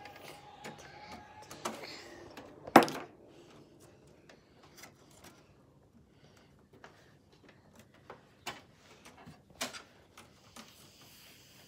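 Scattered light knocks and clicks of handling, with one sharp knock a little under three seconds in.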